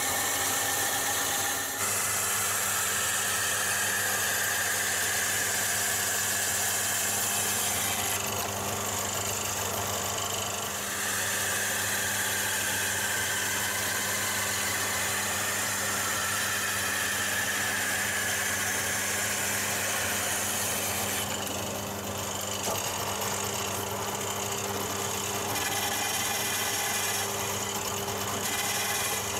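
Wood lathe running with a steady motor hum while a wooden trapping plane shaves the spinning hard-maple spindle, the shaving noise changing as the cut moves along. Near the end, a sizer made from an old file cuts the spindle's tip.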